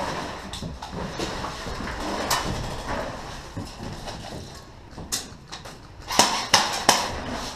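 Rustling and scraping of clothing and gear against the ground during a low crawl. Near the end come several sharp clicks or knocks in quick succession.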